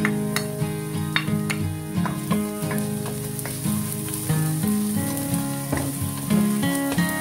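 Diced onions sizzling in a stainless steel frying pan, with clicks and scrapes of a spatula stirring them, over background music of held, changing notes.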